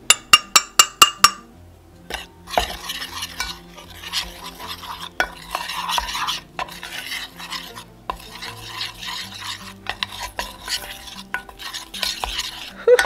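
A metal spoon clinks sharply about seven times in quick succession, knocking powder out of a cup into a stainless steel saucepan. The spoon then stirs and scrapes around the saucepan, mixing the powders into the deodorant mixture.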